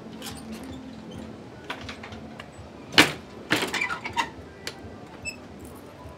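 Metal clicks, clacks and rattles of a key and padlock being worked on a rusty barrel-bolt door latch, with one loud clack about three seconds in and a quick cluster of clicks just after.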